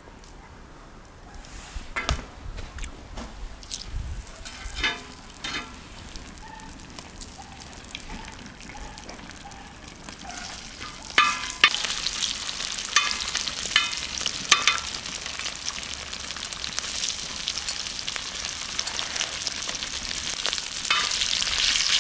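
Cubes of fat frying in a hot, wide iron pan: scattered clicks and knocks at first, then from about halfway a loud, steady sizzle, with a metal spatula scraping and tapping on the pan.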